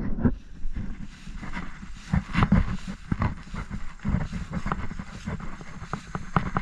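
Footsteps through dry grass and fallen leaves: irregular low thuds with scattered crisp crunches, and wind rumbling on the microphone.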